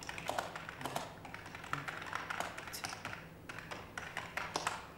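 Typing on a computer keyboard: an irregular clatter of keystrokes over a faint steady low hum.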